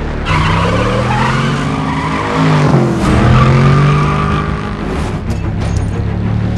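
Police cruiser engine revving hard at speed while its tyres squeal and skid. The engine pitch rises and falls, dipping about three seconds in.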